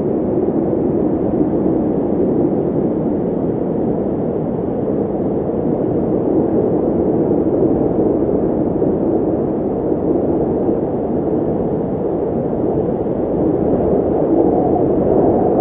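Wind blowing hard across the microphone: a loud, steady rush of noise with slight swells in strength.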